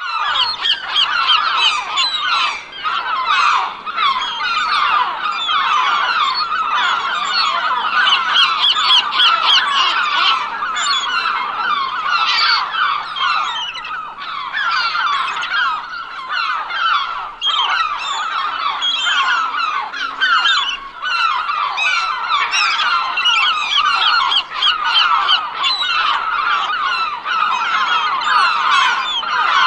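A flock of seagulls calling, many loud calls overlapping without a break.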